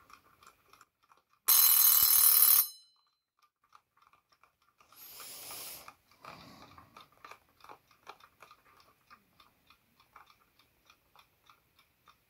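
Advance key-wind mechanical alarm clock: its alarm bell rings loudly for about a second, starting about a second and a half in, and a softer, shorter burst of noise follows about five seconds in. Throughout, the balance-wheel movement ticks quickly and steadily.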